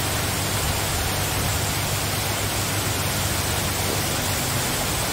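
Heavy downpour, a steady, even hiss of rain falling on concrete and buildings, the drops growing thicker.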